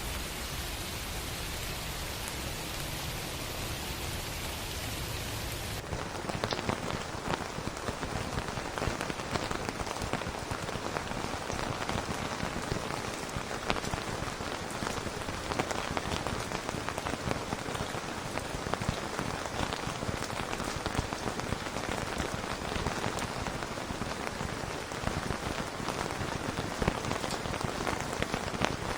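Rain: a smooth, even hiss for about the first six seconds, then a sudden change to closer rainfall full of individual drops ticking and pattering.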